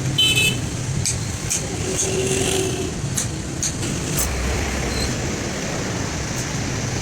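Steady low rumble of motor vehicle noise, with a few light clicks and clinks scattered through it.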